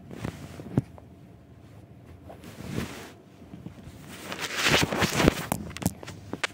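Handling noise from the filming phone being grabbed and moved about: rustling with sharp knocks, loudest in a stretch of rubbing and bumping near the end.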